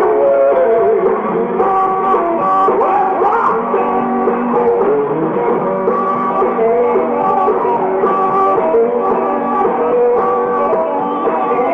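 Live rock and roll band playing, with electric guitar, drums and a singer, the music loud and continuous.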